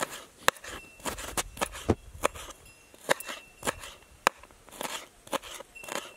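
Kitchen knife chopping spring onions on a wooden cutting board: sharp, uneven chops, about two or three a second.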